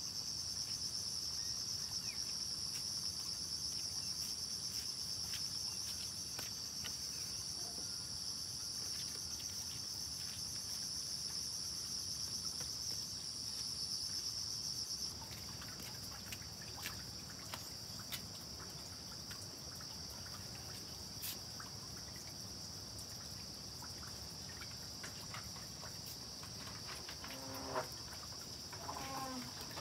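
Insects chirping in a steady high-pitched chorus. A second, pulsing layer drops out about halfway through, leaving the steadier chirring.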